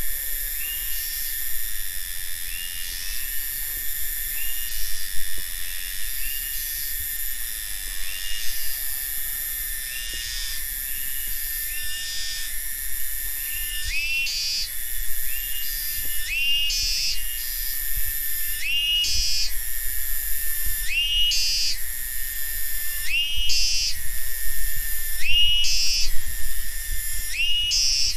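Cicadas calling: a steady, high-pitched drone with repeated short rising calls laid over it, the calls growing louder from about halfway through.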